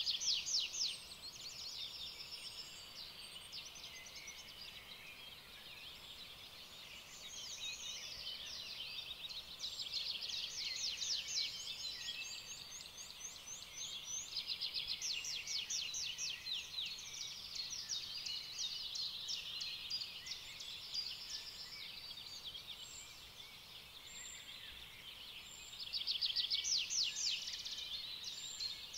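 Several small songbirds singing together: rapid trills and twittering chirps that overlap and swell louder in spells.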